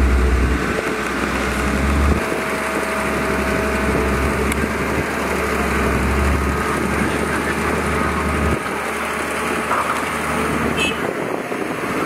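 Diesel engines of heavy earthmoving machinery running, with a deep rumble that drops away about eight and a half seconds in.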